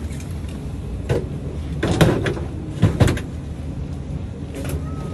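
Steady low rumble of an airliner cabin, with a few knocks and thumps, the loudest about two and three seconds in, as passengers move bags and seats in the aisle.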